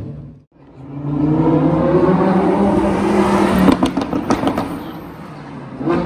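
A vintage car's engine accelerating away, its revs rising steadily. A few sharp cracks come just before the four-second mark, then the sound fades as the car moves off.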